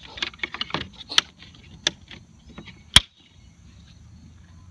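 Plastic fog light grille of a B6 Audi A4 bumper being handled and pushed into place: a run of small rattles and clicks, then one sharp snap about three seconds in.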